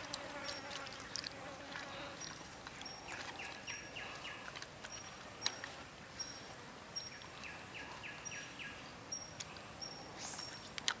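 Outdoor ambience of calling wild animals: a short high-pitched chirp repeats about once a second, and twice a rapid rattling run of clicks sounds for under a second. Faint soft clicks come from the hands working seasoning into raw frog meat on a wooden board.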